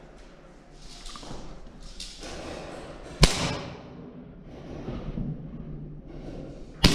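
Two sharp cracks from a KJW KP13 gas blowback airsoft pistol firing: one about three seconds in and another right at the end, with rustling movement in between.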